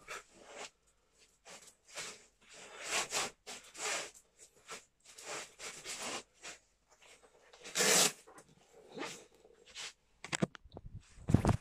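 A boxer's sharp, hissing exhalations in short irregular bursts, one with each punch, while shadowboxing in gloves; the loudest comes about eight seconds in. Near the end, low thumps and rustling close to the microphone.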